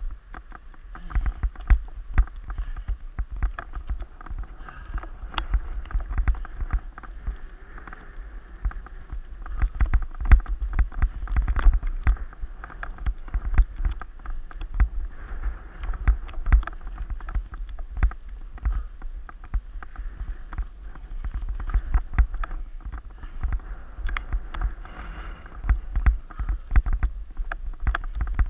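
Mountain bike riding over a rough, rocky forest trail: a steady rattle of the frame and drivetrain, with many irregular knocks from bumps and a low rumble on the GoPro's microphone.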